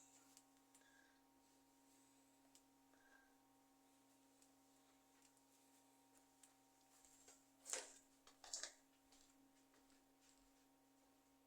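Near silence: a faint steady hum, with two soft clicks close together about two-thirds of the way through.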